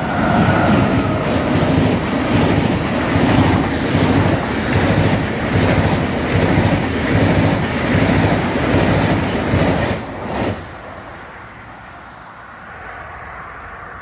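DB Class 101 electric locomotive and its passenger coaches passing close by, with a rhythmic clatter of wheels over the rails. The sound drops suddenly about ten seconds in to a faint, steady distant rumble.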